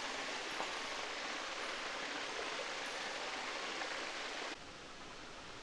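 Steady rush of running water from a natural spring spilling over a small dam, cutting off suddenly about four and a half seconds in to a quieter outdoor hiss.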